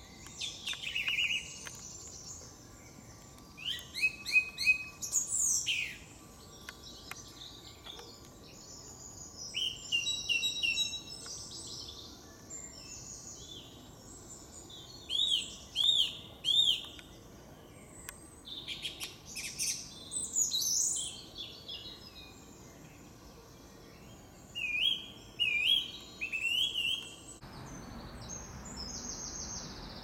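Wild songbirds singing in woodland: short, clear phrases of whistled and trilled notes every second or two. Some phrases repeat the same note three times, over a faint background hiss.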